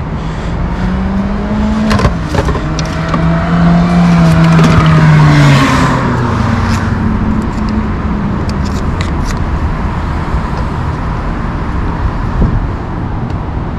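A car passing by on the street: its engine note drops in pitch as it goes past, loudest about five seconds in, then fades away. A few sharp clicks of hand tools being handled come through.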